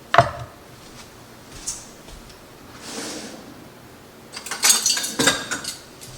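Kitchen utensils knocking and clinking against a pot and containers. There is one sharp knock just after the start, then a busy run of metal clinks from about halfway through.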